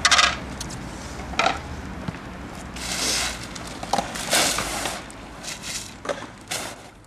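A run of short rustling, crackling noises, about six in all, the first the loudest, fading away near the end.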